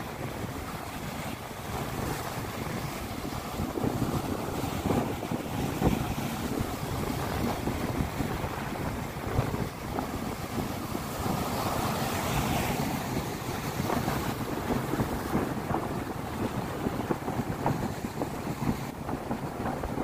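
Rough sea surf breaking and washing over rocks and a concrete tetrapod breakwater, with strong wind buffeting the microphone.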